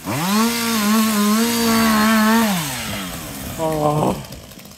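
Two-stroke chainsaw revving up to full speed and running high for about two and a half seconds as it cuts into a tree, then dropping back.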